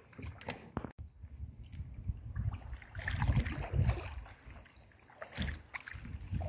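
Paddling a plastic canoe on a slow river: paddle strokes and water sounds, with a few sharp knocks. Wind buffets the microphone about halfway through.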